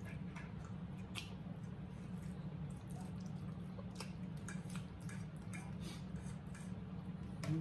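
Mukbang eating sounds: scattered small clicks of chewing and utensils, over a steady low hum.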